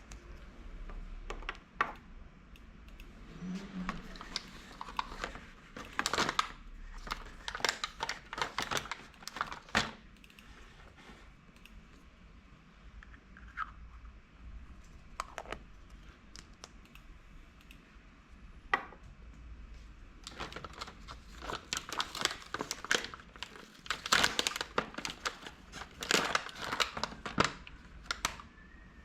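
Crinkling and tearing of toy packaging as it is handled and opened, in two busy spells of crackles, a few seconds in and again from about twenty seconds, with a few scattered clicks between.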